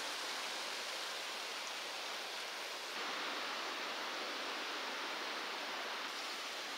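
Steady wind in the forest trees: an even rustling hiss of leaves and branches with no distinct events, a little louder from about three seconds in.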